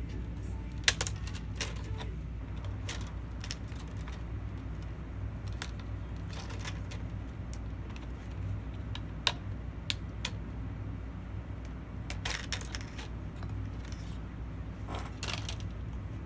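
Plastic screen bezel of an ASUS Vivobook F510U laptop being pried off by hand, its snap clips letting go in scattered sharp clicks and cracks. The loudest come about a second in and about nine seconds in, over a steady low hum.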